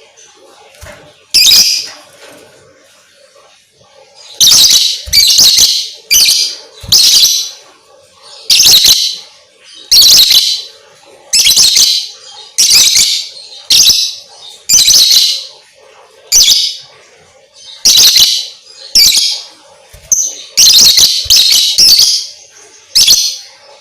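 Lovebird calling in loud, high-pitched chirping bursts, each well under a second, repeated about once a second after a short pause near the start.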